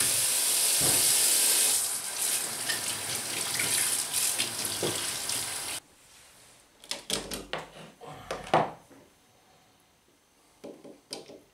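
Kitchen tap running into a stainless steel sink, shut off abruptly about six seconds in. After it, a scatter of clicks and knocks, then a few more near the end as a plug is handled at a wall socket.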